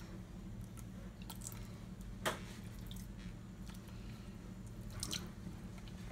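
Soft wet squishing of a hand rubbing a blended spice marinade into thin raw chicken slices in a ceramic bowl, with two sharper clicks, about two seconds in and about five seconds in. A steady low hum runs underneath.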